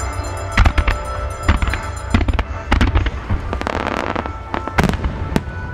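Fireworks display: a string of sharp bangs at irregular intervals, with a denser noisy spell about three and a half seconds in, over music holding steady tones.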